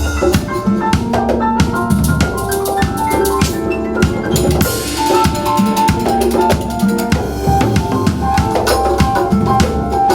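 Band music driven by a drum kit, with bass drum and snare hits under held melodic notes; a cymbal crash rings out about halfway through.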